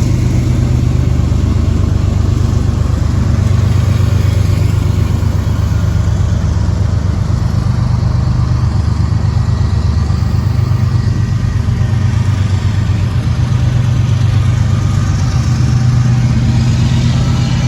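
Diesel freight locomotives running under power, a loud, steady low engine drone with wheel and rail noise, as the Norfolk Southern manifest train pulls away after a stop.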